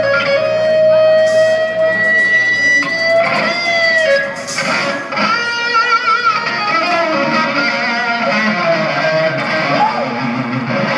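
Electric guitar played through an amplifier: long sustained notes, one held steady early on, then bent notes with vibrato later.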